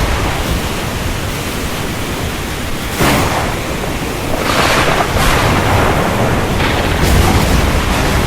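Heavy rain falling as a steady dense hiss, with a sudden louder surge about three seconds in and further swells later on.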